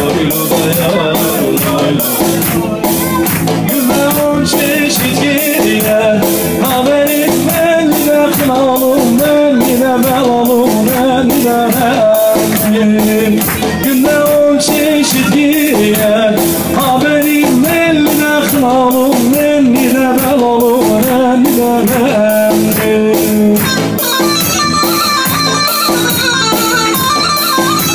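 Live halay dance music played on an electronic keyboard: a wavering melody over a fast, steady drum beat. The melody moves into a higher register about four seconds before the end.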